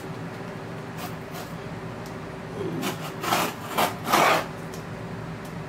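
Scissor blade scraping and slicing through packing tape on a cardboard box: a few faint clicks, then several short rasping strokes about three seconds in, the loudest about four seconds in.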